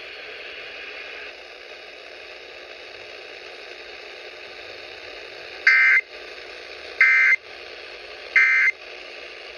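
Emergency Alert System End-of-Message code over the radio: three short bursts of warbling digital data tones about 1.3 seconds apart, marking the end of the alert. Before them is a few seconds of steady hiss of dead air.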